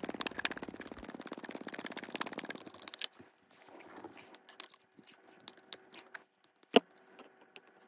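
Ratcheting driver clicking rapidly for about three seconds as the pistol grip screw is tightened into the rifle's lower receiver. Then quieter handling of the rifle, with one sharp knock near the end.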